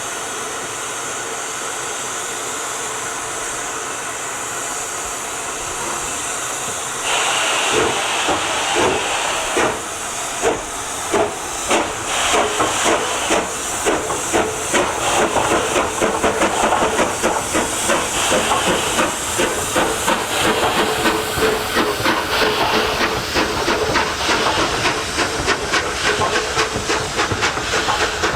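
Steam locomotive hissing steadily, then from about seven seconds in pulling away, its exhaust beats slow at first and quickening into a fast rhythm.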